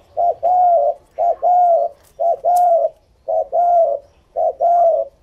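Caged spotted dove cooing in a steady series: five two-part coos about a second apart, each a short note followed by a longer one.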